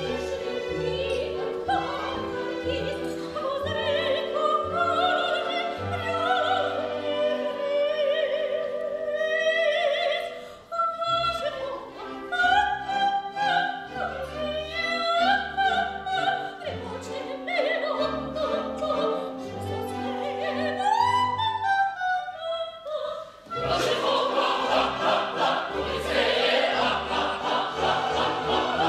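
Operetta singing with vibrato over a pit orchestra. About three quarters of the way through, the orchestra and voices swell into a fuller, busier passage.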